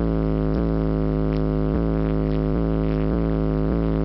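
Bass-heavy music played loud through car subwoofers, a 12-inch Kicker L7 and a Memphis Mojo, heard inside the car: a steady, deep bass drone with a beat a little under twice a second.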